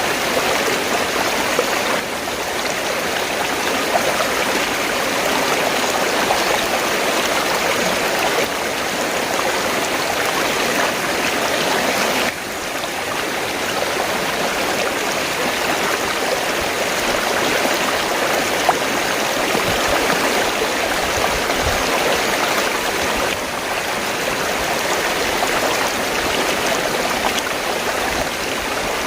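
River water flowing steadily in a continuous rushing wash, with a few brief slight dips in level.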